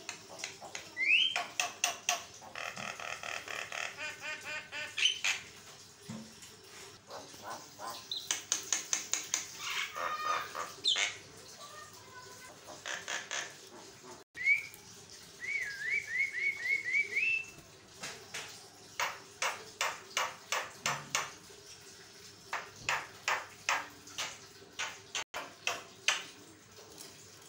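Javan myna chattering without pause in a varied song: a rising whistle about a second in, buzzy rattling and rapid clicking runs, and a string of quick upslurred notes about halfway through, followed by long trains of fast clicks.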